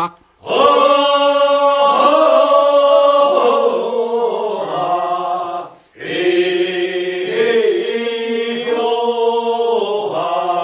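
A chorus of voices singing the refrain of a Korean rice-paddy weeding work song in answer to the lead singer, in two long held phrases with a brief breath about halfway through.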